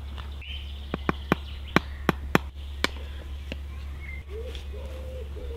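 A wooden stirring stick knocks against the inside of a stainless steel mug as dry flour, yeast and salt are mixed: about eight sharp, irregular clicks. Birds call in the background, with a dove cooing near the end.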